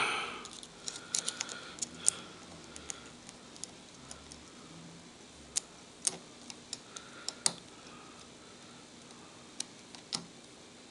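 Sparse, irregular small metal clicks and taps as lock picks are swapped and a new pick is worked into a padlock's keyway.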